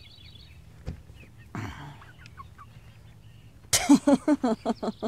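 Young barred hens clucking: near the end a sudden quick run of clucks, about six a second, after soft high peeps and a small click earlier.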